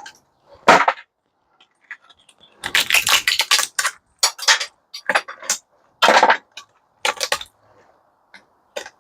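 Sharp metallic clicks, clinks and knocks of small metal parts being twisted and pulled from a scrapped microwave, coming irregularly with a quick cluster a few seconds in.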